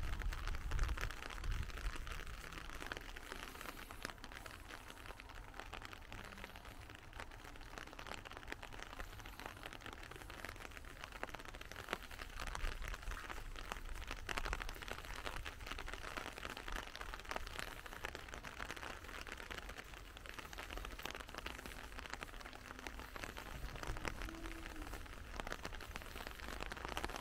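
Light rain pattering: a steady soft hiss dotted with many small ticks. A low rumble, like wind on the microphone, near the start.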